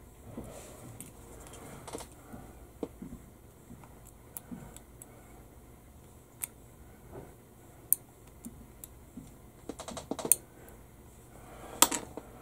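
Scattered light clicks and taps of hand tools and small plastic model parts being handled at a modelling bench. There is a quick run of clicks about ten seconds in and a sharper click near the end.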